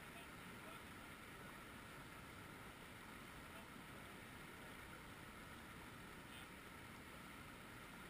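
Faint, steady rushing of a small mountain creek running fast over rocks.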